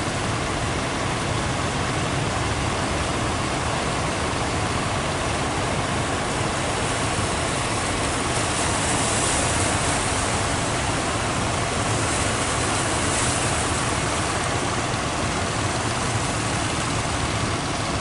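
Steady din of breaking surf mixed with the low rumble of fishing boats' engines running hard as they push out through the waves.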